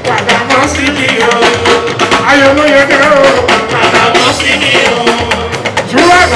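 Live Fuji band music: a singer's wavering lines over held instrument notes and steady drumming and percussion.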